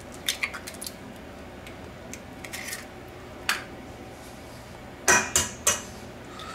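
Eggs tapped and cracked on the rim of a stainless steel mixing bowl: a few sharp taps in the first second, then three louder taps about five seconds in as the second egg is cracked, with small clicks of shell on metal between.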